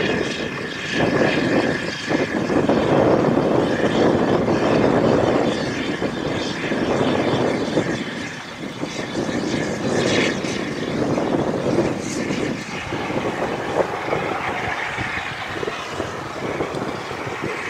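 Steam train running: a continuous noisy rush that swells and fades, with a few brief knocks.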